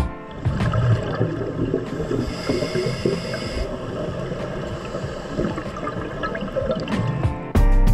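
Underwater gurgling of a scuba diver's exhaled bubbles, with a short hiss about two seconds in. The gurgling surges near the start and again near the end.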